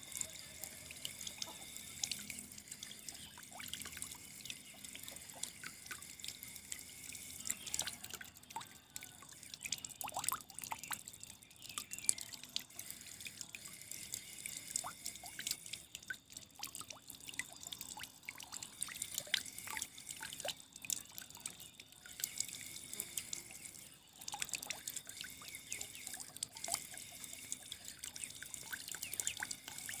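Running water trickling, with many small irregular drips and plinks over a soft steady hiss.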